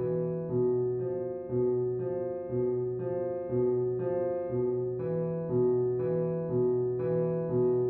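Background music: a keyboard plays a slow, repeating figure of notes struck about twice a second, each ringing on.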